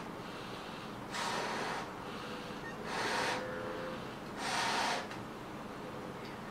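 A person blowing up a latex balloon by mouth: three loud, noisy breaths about a second and a half apart, the effort of inflating it.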